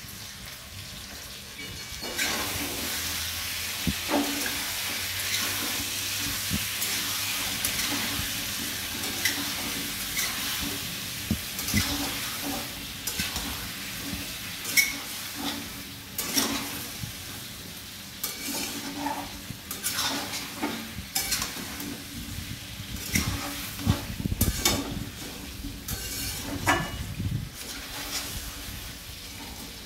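Potatoes with whisked yogurt and spices sizzling in a steel kadai while a metal spatula stirs and scrapes them, with sharp clinks of metal on the pan. The sizzle comes up strongly about two seconds in and eases in the second half, where the clinks of stirring come thicker. This is the potatoes being sautéed in the spice and yogurt mix for aloo dum.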